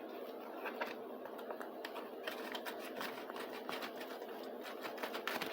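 Tape being cut to free a plastic Hot Wheels garage ramp: a run of small, irregular clicks and scrapes from the blade working through tape and plastic.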